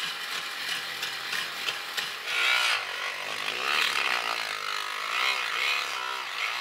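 Angle grinder with a cut-off disc cutting through the metal front structure of a BMW i8, the cut made to free the front subframe. Its pitch wavers as the disc bites, from about two seconds in.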